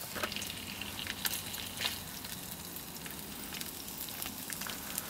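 Scrambled eggs and ham frying in pans over campfire coals: a steady sizzle, with a few light clicks in the first two seconds.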